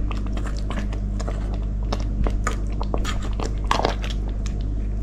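Fried fish simmering in brown sauce in an aluminium pot, crackling and popping steadily, with a metal spoon clicking and scraping against the pot as sauce is spooned over the fish. A steady low hum runs underneath.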